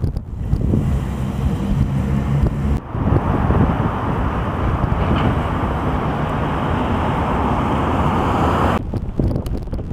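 Strong wind buffeting the microphone in uneven gusts. From about three seconds in, a fuller, steady rushing noise joins it, then cuts off sharply near the end.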